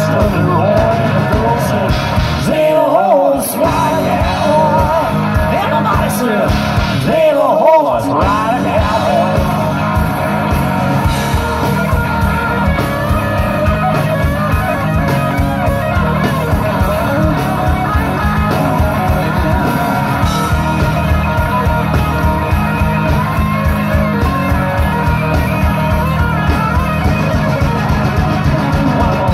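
Live rock band playing loud through a PA: electric guitars, bass and drums with a sung vocal. The bass and drums drop out briefly twice in the first eight seconds, then the band plays on steadily.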